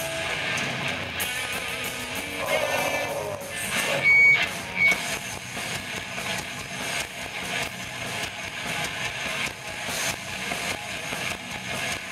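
Metal band playing live: distorted electric guitars, bass and drums in a dense, steady wall of sound. About four seconds in, a brief high squeal rises out of the mix, the loudest moment, followed shortly by a second, shorter one.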